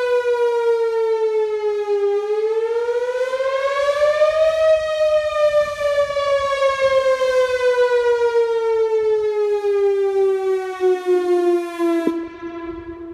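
Whelen Vortex R4 electronic outdoor warning siren sounding a wail test: its pitch dips, rises for a couple of seconds, then falls slowly for several seconds. It cuts off sharply about twelve seconds in, and a fainter low tone lingers and fades away.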